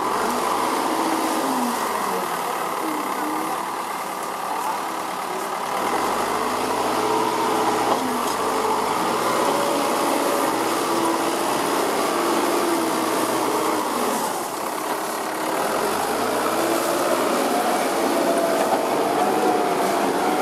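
Cat 424B backhoe loader's diesel engine running as the machine drives through soft mud, its pitch rising and falling several times as the throttle works.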